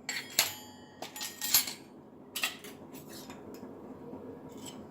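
A spoon clinking and tapping against a bowl as spice-paste ingredients are added, a handful of short light clinks in the first two and a half seconds, then quieter.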